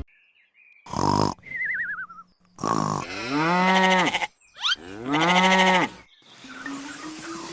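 A cow mooing: two long moos of about a second each, the first beginning about three seconds in. Before them come a short wavering, falling whistle-like tone and a few brief noises.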